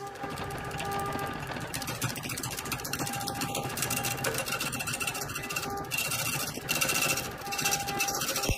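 Wood lathe spinning a large log while a hand-held turning tool cuts into the rough, bark-covered outside: a steady harsh scraping and chattering of the tool on the wood. It grows louder and shriller for a second or so a little past halfway, and again near the end, as the tool bites deeper.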